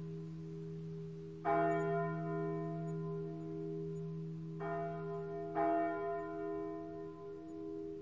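Church bell struck three times: once about a second and a half in, then twice more in quick succession a few seconds later. Each strike rings out over a long, wavering hum that carries on from earlier strikes.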